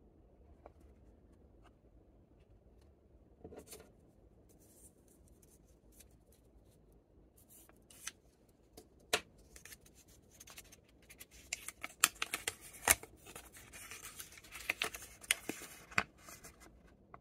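Paper and cellophane candy wrappers crinkling and crackling as they are handled, with sharp clicks, sparse at first and busiest in the second half.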